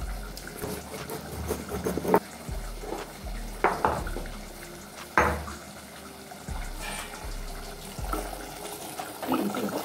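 Stone roller grinding dry-roasted fenugreek seeds on a stone grinding slab (ammi kal): a gritty back-and-forth scraping, with a few louder strokes in the first half.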